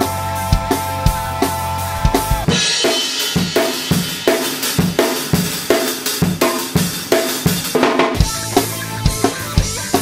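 Drum kit playing a groove, with a 10-inch cardboard-tube snare drum cracking among kick and cymbals, over a band's backing track. From about two and a half seconds in until near the end, only the drums are heard, thinner and brighter through the camera's room microphone, before the full mix with its bass returns.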